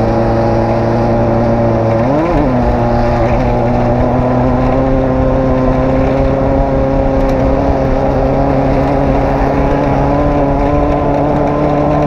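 Off-road race vehicle's engine running hard at steady revs, with a quick rise and fall in pitch about two seconds in, then holding steady and climbing slightly.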